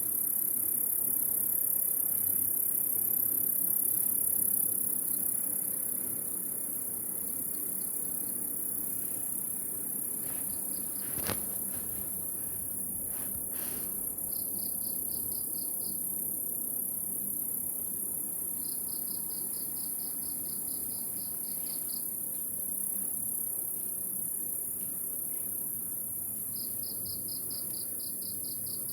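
Night insect chorus: a steady, shrill high-pitched drone, joined three times by a nearer insect's pulsed trill of a few seconds each, about four or five pulses a second. A single sharp click comes about eleven seconds in.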